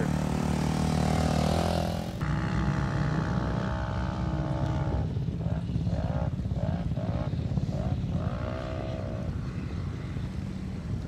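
Off-road pickup truck engine on sand dunes, revving hard as it heads for a steep sand hill; from about five seconds in its pitch surges upward again and again, roughly twice a second, for several seconds. Before a cut about two seconds in, an engine runs steadily up close.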